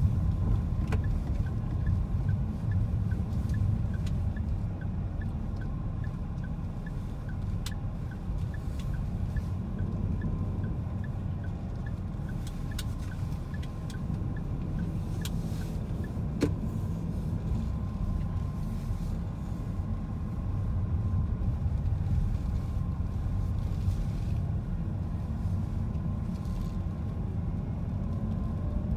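Car cabin noise while driving: a steady low rumble of engine and road. For roughly the first half, an even light ticking of a few clicks a second sounds, the turn-signal indicator, with a few sharp clicks scattered through.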